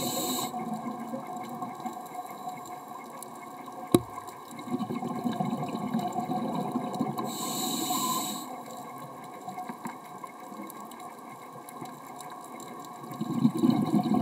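Underwater sound of a scuba diver breathing through a regulator. There is a hissing breath near the start and again about eight seconds in, with bubbling rumbles between them, over a faint steady hum. A single sharp click comes about four seconds in.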